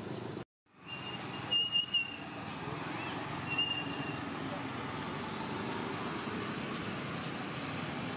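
Steady outdoor background noise, broken by a brief dropout near the start. About a second and a half in comes a scattered run of short, thin, high-pitched chirps or squeaks at a few different pitches, which dies out by about five seconds in.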